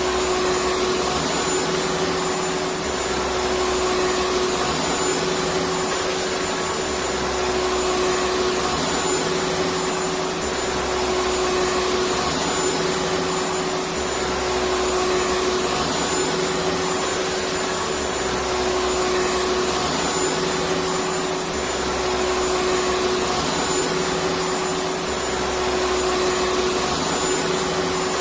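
Vacuum cleaner running steadily: a constant rushing air noise with a steady motor whine, never changing in pitch or level.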